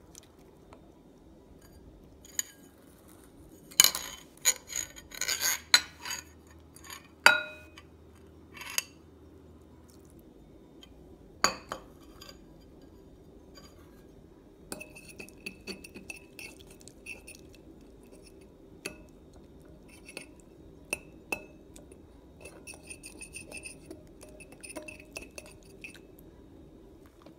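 A mixing utensil clinking and scraping against a glass bowl while glue is stirred into slime. There are a few sharp clinks first, then from about halfway in a long run of light, quick taps.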